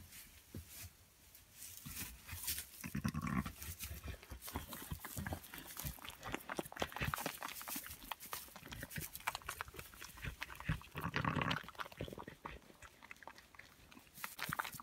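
Cotswold ewes and newborn lambs shifting in straw right at the microphone, with constant rustling and clicks. There are two short sheep calls, one about three seconds in and one about eleven seconds in.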